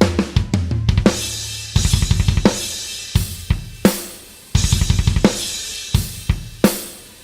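Rock drum kit playing on its own: a kick-and-snare groove with hi-hat, a quick run of strokes in the first second, and repeated cymbal crashes that ring on.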